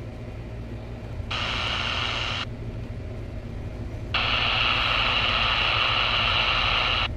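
Retekess V111 shortwave radio auto-scanning the band: static hiss from its speaker cuts in for about a second, drops away, then comes back near the middle and holds for about three seconds as it steps through empty frequencies.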